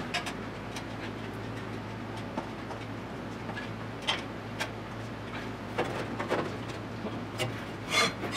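Scattered light clicks and taps of metal tools being handled, with a slightly louder cluster near the end, over a steady low hum.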